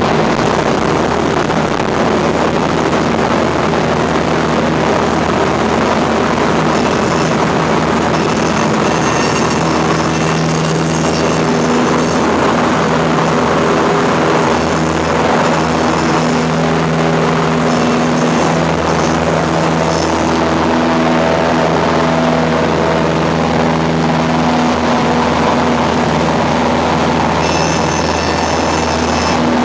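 Cessna 162 Skycatcher's Continental O-200 four-cylinder engine and propeller running at full takeoff power, heard inside the cabin through the takeoff roll and climb-out. A thin high-pitched stall-warning tone sounds on and off several seconds in and again near the end.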